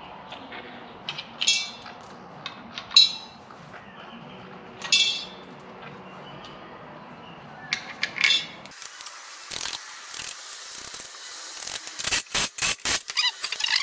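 Small steel bolts and washers clinking against each other and the concrete floor, a few ringing clinks a second or two apart. From about ten seconds in, a quick irregular run of sharp clicks and rattles as a cordless drill works at the steel bracket on the board.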